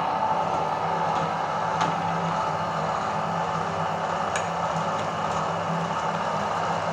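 Electric meat grinder motor running steadily, with a few faint clicks over the hum.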